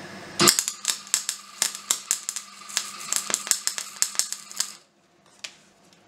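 MIG welder arc on scrap steel, crackling and popping unevenly over a steady hum as a short weld is laid. It cuts off abruptly when the trigger is released, followed by a single click.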